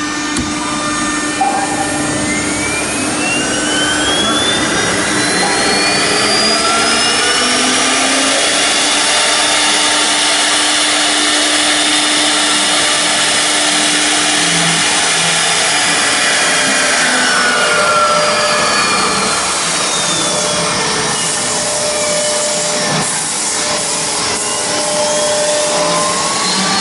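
Three-spindle CNC router running: a loud, steady machining noise with spindle motor whines that rise in pitch a couple of seconds in, fall about two-thirds of the way through, and rise again near the end as the spindles speed up and slow down.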